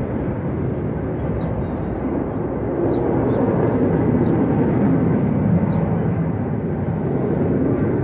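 Aircraft flying low overhead: a steady, loud engine rumble that swells a little in the middle.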